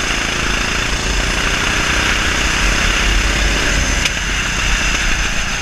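A 390cc single-cylinder rental kart engine running steadily at speed, heard from the driver's seat and largely buried under wind rushing over the camera microphone.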